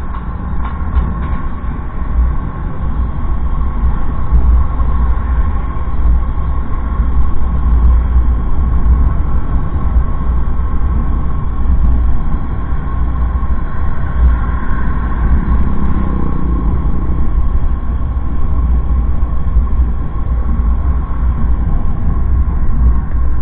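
Steady, heavy low rumble of wind buffeting and road noise on the microphone of a camera riding on a moving vehicle along a paved highway.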